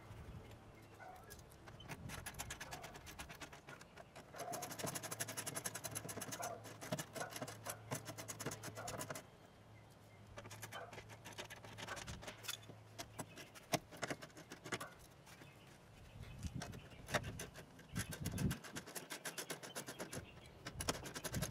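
Faint clicking and scraping of hands and tools at a BMW E46 door's side airbag module as it is fitted and fastened. There are stretches of rapid clicking about four seconds in and again near the end.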